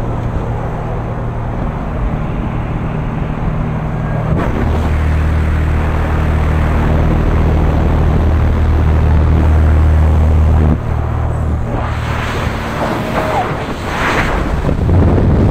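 Steady drone of the jump plane's propeller engine mixed with air rushing past the open door. About eleven seconds in the drone gives way to rough, gusting wind noise as the skydivers drop into freefall.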